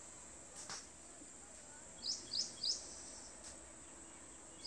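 A small bird chirping in the background: three quick high chirps about two seconds in and another near the end, over a faint steady high hiss.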